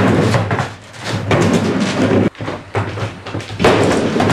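Skateboard riding a wooden mini ramp: its wheels rumble over the plywood in repeated surges as it goes back and forth, with knocks and slams of the board and trucks on the wood.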